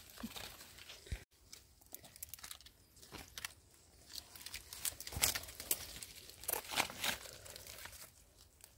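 Irregular rustling and crackling of dry forest litter, with a few sharper snaps about five to seven seconds in.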